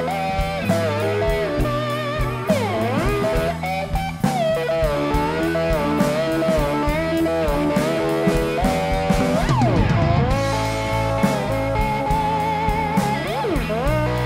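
Live blues band: an electric guitar solo full of bent and sliding notes over the drums.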